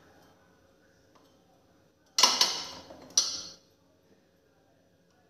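China cups and saucers and a glass cup clinking against each other and the wooden shelf as they are moved and set down. A sharp cluster of clinks comes about two seconds in and another about a second later, each ringing briefly.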